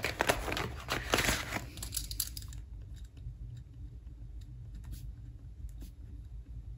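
Paper banknotes and cash envelopes rustling and crinkling as they are handled. The rustling is densest for the first two seconds or so, then turns fainter, with a few light clicks.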